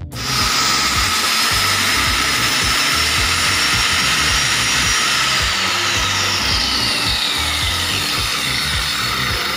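Handheld electric saw running and cutting into a wooden board: a loud, steady whine that starts abruptly, its pitch sliding gradually downward through the second half.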